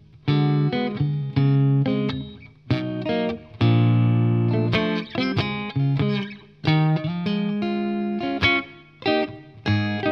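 AcePro Telecaster-style electric guitar with Pribora pickups played clean through a VHT amp, with no drive. Chords and notes are picked in short phrases, some left to ring for about a second.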